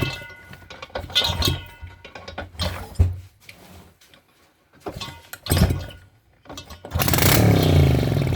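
Soviet 2SD two-stroke engine, running on petrol poured in with no carburettor, being cranked over with several short separate bursts. About seven seconds in it fires and runs loudly for about a second and a half before dying.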